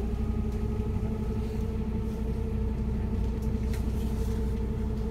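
Van Hool A330 city bus heard from inside the passenger cabin, driving at steady speed: its drivetrain whine holds one steady pitch over a deep engine and road rumble, with a few faint rattles.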